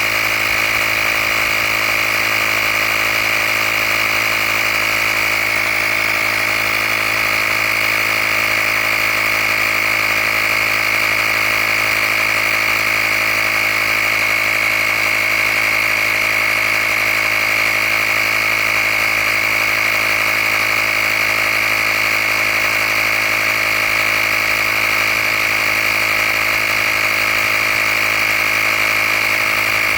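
Handheld air compressor running steadily as it pumps up a tire toward its preset 35 PSI: an even motor hum with a strong high whine.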